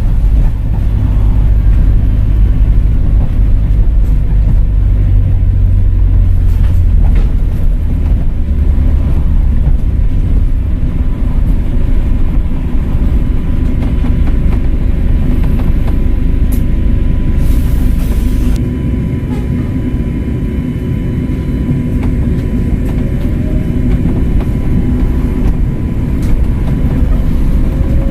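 Volvo B5LH diesel-electric hybrid double-decker bus running, a heavy low rumble with a thin steady whine above it. About two-thirds through there is a short hiss, and after it the low rumble eases off.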